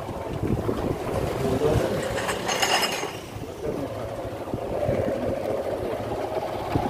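Vehicle and road noise while riding along, with wind rushing over the phone's microphone, and a short high-pitched sound about two and a half seconds in.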